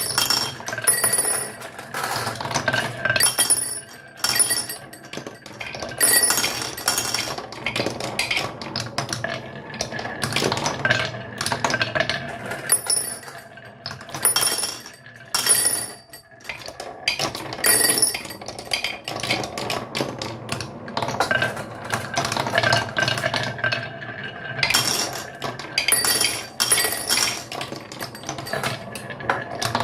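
Continuous clattering and clinking of small hard toy pieces knocking together and rolling, with brief bright ringing notes and a short lull about halfway through.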